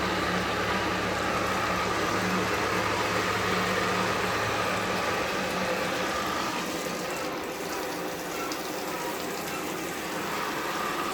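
Electric water pump running steadily, a motor hum under the rush of water through it; the hum fades about halfway while the water noise goes on.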